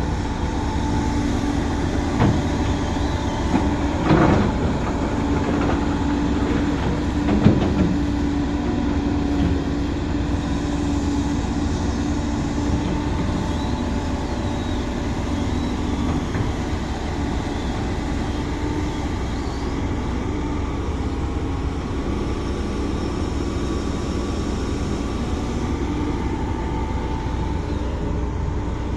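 Excavator engine running steadily with a low rumble and a held hum, with a few short knocks in the first eight seconds.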